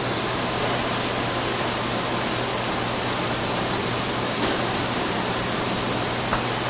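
Steady hiss from a commercial kitchen's exhaust hood fan over the griddle, with a low hum under it. A couple of faint clinks of metal utensils come near the middle and near the end.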